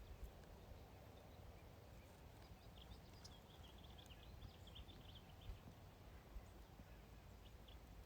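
Near silence: faint outdoor ambience, with a few faint, short bird chirps around the middle.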